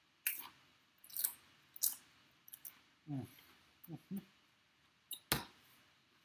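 Biting into and chewing a crisp corn tortilla chip topped with ceviche: three sharp crunches in the first two seconds, then a few short hums with the mouth full. A single sharp knock comes about five seconds in.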